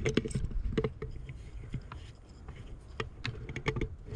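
Irregular clicks and rattles from a Ruger bolt-action rifle in .450 Bushmaster being fumbled with while struggling to get the next shot off, because its bolt has lifted slightly from brushing through cover. Low rustling of movement through brush runs underneath.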